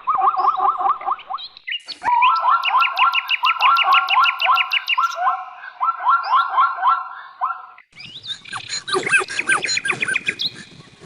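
Bird calling in rapid runs of short, repeated chirping notes, about four or five a second. About eight seconds in it cuts to a denser, more varied bout of calls.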